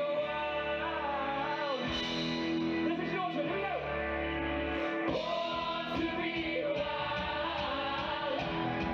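A live band and a group of male singers performing a song: voices singing over guitars, drums and keyboard.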